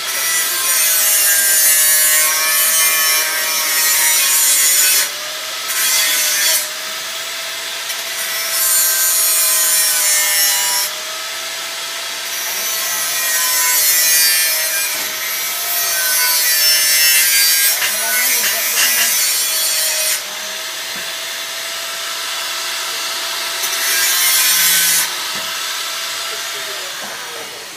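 Handheld angle grinder with a cut-off disc cutting stainless steel square tubing: a steady motor whine, with the hiss of the cut coming and going over several passes. The whine falls as the grinder winds down near the end.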